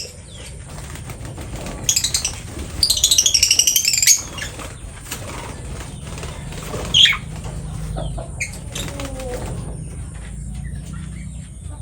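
Lovebird chattering in fast runs of shrill, rapidly repeated notes, twice in the first four seconds. A single sharp chirp about seven seconds in is followed by a few fainter chirps.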